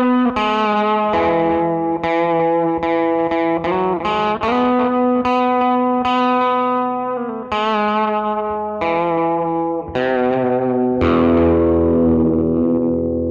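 Overdriven electric guitar playing a rock'n'roll intro, with chords and notes held and left ringing. A deep bass comes in about eleven seconds in.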